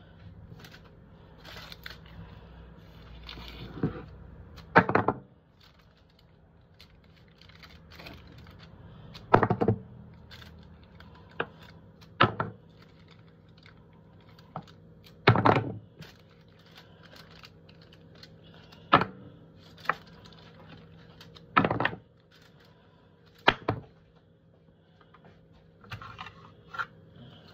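Hands handling roasted beef ribs on aluminium foil over a wooden board: irregular knocks, taps and foil crinkles, with about eight sharper thuds spaced a few seconds apart, over a steady low hum.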